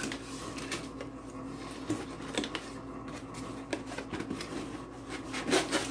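Cardboard packaging and paper being handled: scattered light rustles, taps and scrapes, busier near the end, over a faint steady hum.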